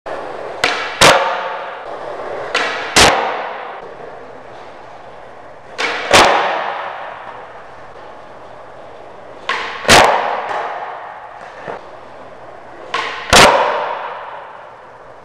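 Skateboard tricks on a smooth concrete floor: five times a sharp pop of the tail is followed about half a second later by a louder clack of the board landing. Each landing rings out in a long echo through the big empty warehouse.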